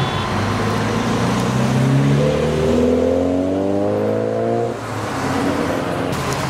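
A vehicle engine accelerating, its pitch rising steadily for about three seconds before it cuts off, over a steady hum of road traffic.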